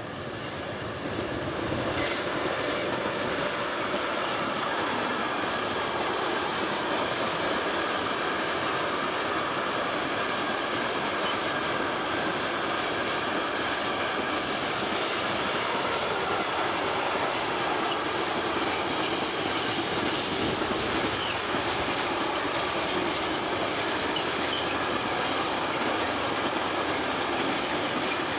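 Long container freight train rolling past: a steady rumble and clatter of wagon wheels on the rails and points, with a faint wheel squeal. It swells over the first couple of seconds, then holds level as the wagons stream by.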